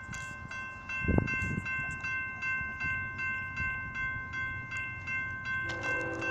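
Railroad crossing warning bell ringing steadily, about two strikes a second, with a loud low thump about a second in. Near the end a train horn begins sounding from the approaching train.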